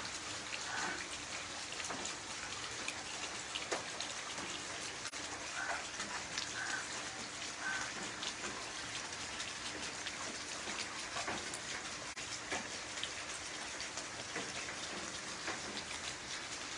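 Heavy rain falling steadily on wet concrete paving: an even hiss with many scattered individual drop splashes.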